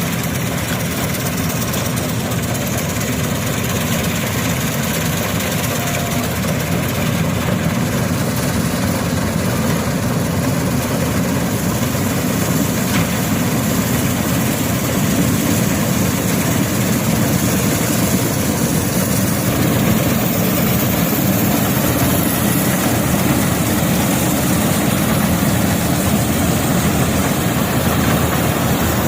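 Wheat harvesting machine's diesel engine running steadily under load. It gets slightly louder about halfway through.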